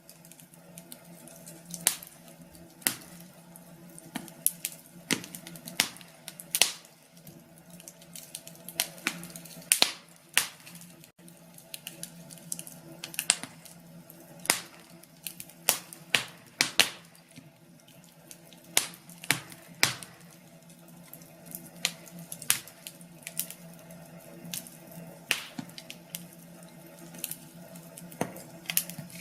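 Fire in a fireplace crackling and popping irregularly, sharp snaps of varying loudness coming several times a second, over a faint steady hum.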